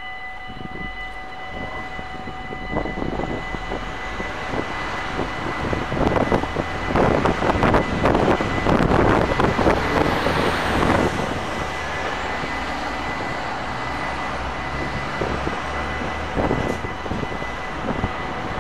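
Level crossing warning bells ringing steadily while the crossing is closed. A louder rushing noise swells from about six to eleven seconds in and then fades.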